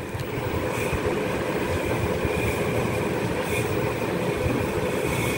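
Domestic cat purring steadily while its head is stroked.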